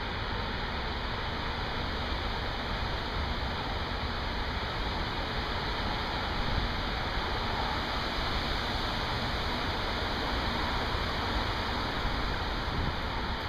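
Steady rush of heavy rain, an even hiss that holds level without breaks.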